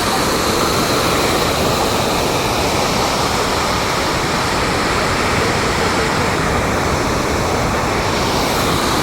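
Rushing floodwater making a loud, steady noise that does not change.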